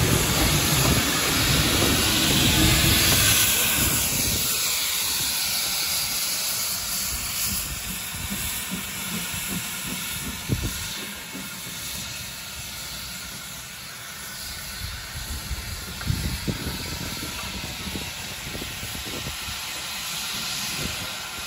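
Small industrial saddle-tank steam locomotive hissing steam as it moves off with its wagons. The hiss is loudest for the first few seconds, then fades to a quieter, steady rumble as the engine draws away.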